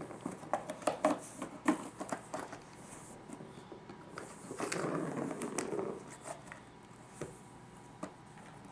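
A cat pawing at a plastic ball-track toy with a cardboard scratch pad: a run of light taps and clicks for the first couple of seconds, a rustling scrape lasting about a second and a half midway, then a few scattered taps.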